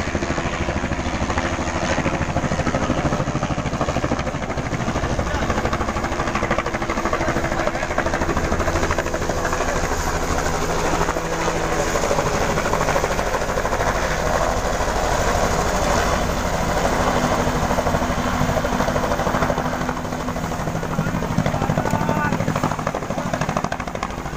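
Light single-rotor helicopter descending to land, its rotor beating in a steady, rapid chop.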